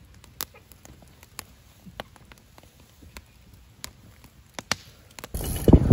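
Wood fire crackling in a fire pit: sparse, irregular sharp pops over a quiet background. Near the end it cuts to wind noise on the microphone and a loud thump.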